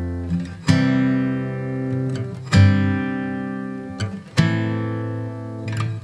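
Background music: acoustic guitar chords strummed and left to ring out, a new chord about every two seconds.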